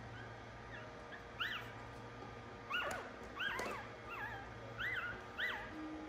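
One-week-old Shih Tzu puppies crying: a series of about seven short, high squeaky cries, each rising and then falling in pitch.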